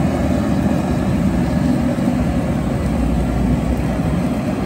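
Steady low roar of the gas burner flaming beside a vertical spit of al pastor pork.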